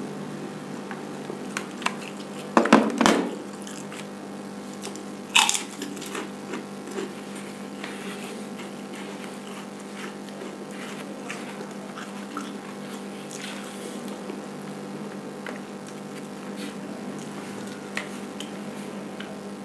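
A person eating by hand from a styrofoam box: fingers tearing food and small crunches and clicks of chewing, over a steady electrical hum. A loud cluster of knocks comes about three seconds in and a sharp click at about five and a half seconds.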